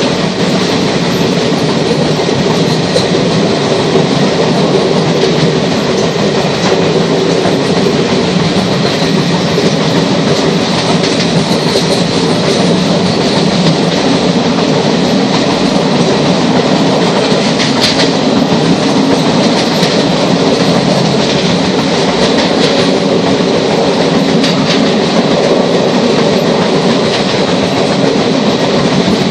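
Steady, loud running noise of a train at speed, heard from on board, with occasional clacks from the wheels and track.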